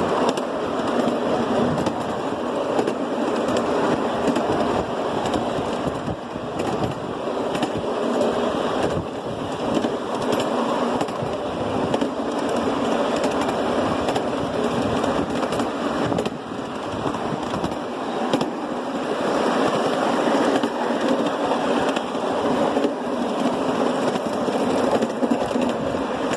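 Ride-on miniature railroad train rolling along its track: steel wheels running and clattering on the rails as a steady rattling rumble full of fine clicks, swelling and easing slightly.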